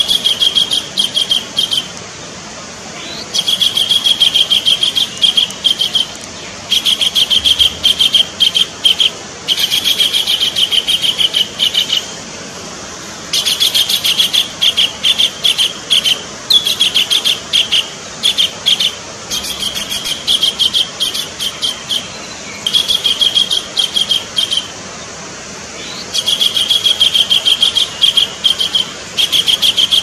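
Collared kingfisher calling: about a dozen runs of rapid, repeated high notes, each run one to three seconds long, with short pauses between them.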